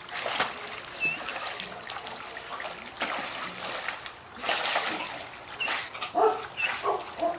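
Dogs swimming and splashing in a swimming pool, the water sloshing and dripping, with a few short dog barks or yips near the end.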